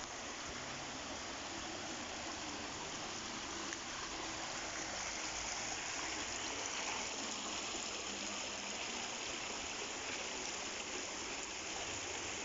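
Shallow water running steadily along a concrete channel, a little louder from about five seconds in.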